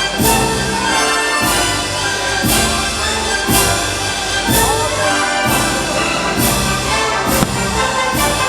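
Orchestral Disney show music with brass, marked by sharp accents about once a second.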